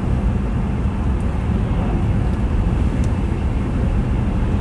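Steady low rumble of a car on the road, with engine and tyre noise heard from inside the cabin.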